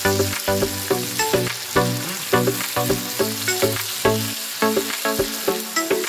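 Onions and tomatoes sizzling in hot oil in a pan while a wooden spatula stirs them, with background music with a steady beat over it.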